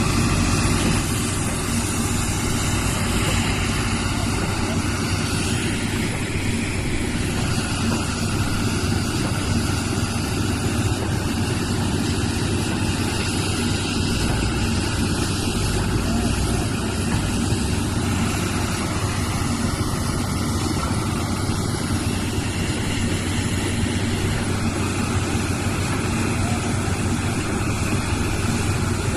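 Heavy machine's engine running steadily with a constant low hum.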